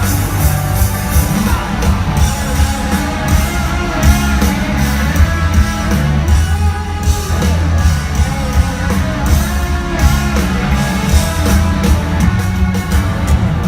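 Rock band playing live and loud: electric guitars and drums, with a sung lead vocal.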